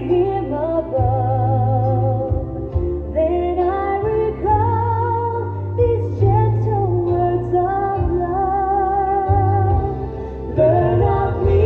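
Recorded song playing: a melody in long, wavering held notes over low, steady bass notes.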